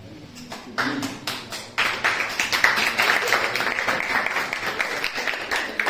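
A lecture hall of students applauding: scattered claps about a second in, swelling into steady applause from about two seconds in.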